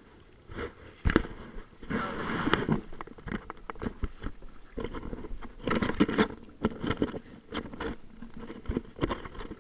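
Choppy waves slapping and splashing against a plastic sit-on-top kayak's hull in irregular knocks and splashes, with louder clusters about two seconds in and again near the middle.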